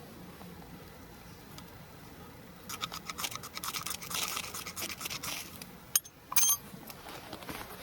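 A quick run of rapid scraping strokes for about three seconds, then a sharp click and a brief loud scrape with a high metallic ring.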